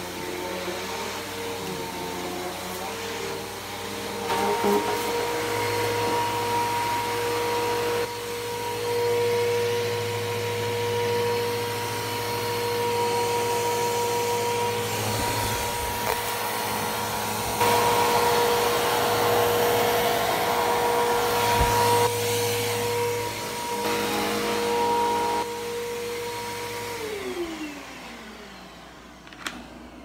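Bissell PowerForce Helix Turbo bagless upright vacuum running over carpet. Its motor whine holds steady while the loudness rises and falls as it is pushed about. Near the end the motor is switched off and the whine falls away as it winds down, followed by a single click.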